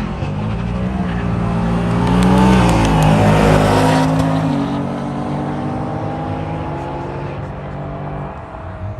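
A car accelerating hard past, its engine note climbing for the first few seconds, loudest around the middle, then dropping in pitch and fading as it moves away.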